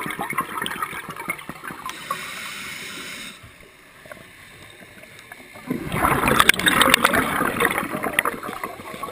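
Scuba exhaust bubbles gurgling and crackling underwater: the bubbling tails off into a quieter lull, then a fresh rush of bubbles from an exhalation comes about six seconds in and fades again.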